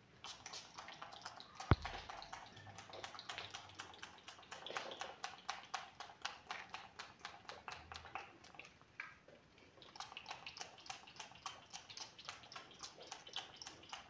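A pump-action body-spray bottle pumped over and over in short, rapid sprays, about four a second, with a brief pause near the ninth second. The bottle is nearly empty. One sharper knock sounds just under two seconds in.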